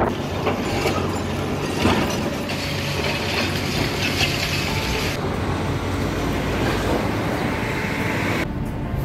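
Long-reach demolition excavator tearing down a concrete apartment block: continuous rumbling clatter of concrete breaking away and rubble falling. The sound cuts off just before the end.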